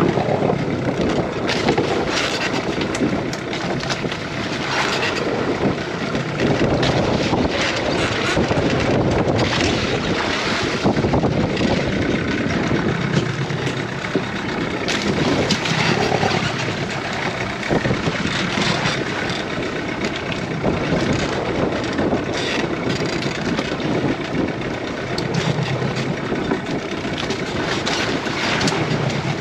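A fishing boat's engine running steadily, kept going to hold the boat against a strong current, with wind buffeting the microphone.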